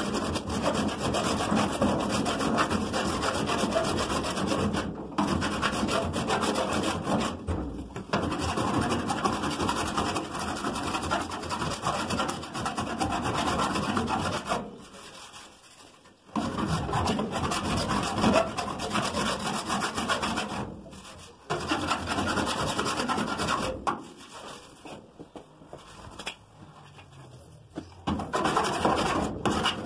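Metal file rasping over lead body solder on a steel car body panel, shaving the lead down smooth. Long runs of rapid strokes stop briefly several times, with a quieter spell late on before the filing picks up again near the end.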